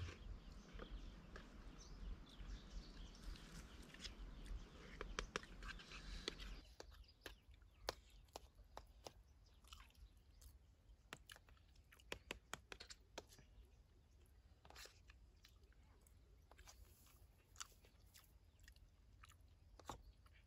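People eating with spoons from plates: scattered light spoon clicks and scrapes with quiet chewing. For the first six seconds a steady outdoor hiss lies under it, then it drops away and the clicks stand out.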